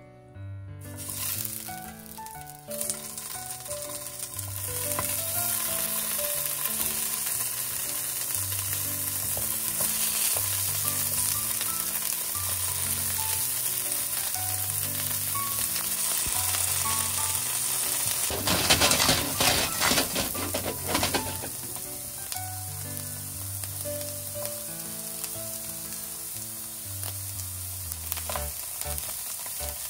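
Boiled bamboo shoot pieces frying in hot oil in a nonstick pan: a steady sizzle that starts about a second in. It grows louder, with some clatter, for a few seconds about two-thirds of the way through.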